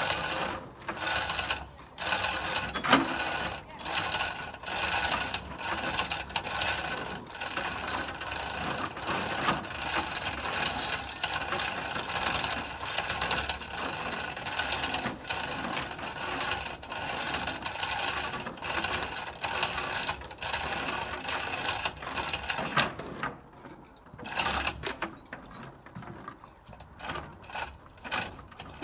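Hand-pulled chain hoist lifting a timber beam: a steady clatter of hand chain running through the block and the ratchet pawl clicking, with short breaks in the pulling, the longest near the end.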